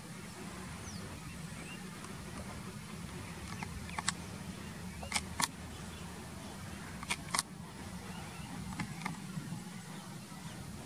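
Low, steady rumble of a Boeing 737-800's CFM56 jet engines, heard from a distance as the airliner rolls out along the runway after landing. Several sharp clicks close to the microphone come in pairs from about four seconds in.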